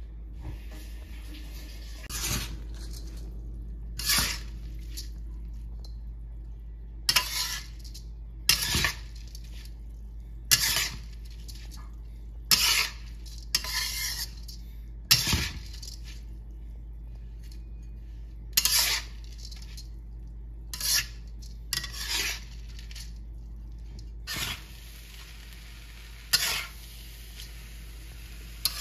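A spatula scraping the wok and turning raw glutinous rice being stir-fried from raw, in short strokes roughly every one to two seconds, the dry grains rattling against the metal.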